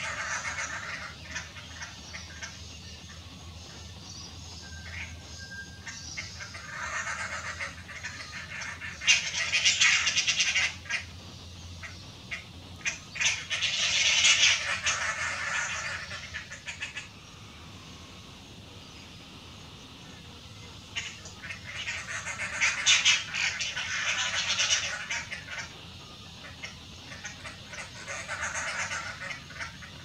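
Dollarbirds giving harsh, rapid chattering calls in several bouts a few seconds long, the loudest about a third of the way in and again past the middle.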